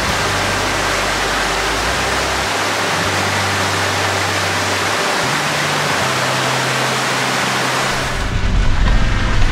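Steady, dense hiss of rushing water over soft background music with slow low notes that change every few seconds. About eight seconds in, the hiss falls away and a lower rumble takes over.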